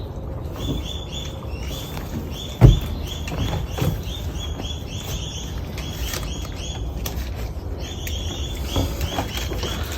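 A young puppy squeaking, a quick run of short high-pitched squeaks at about two or three a second, with a brief pause near the end. A loud thump about a quarter of the way in.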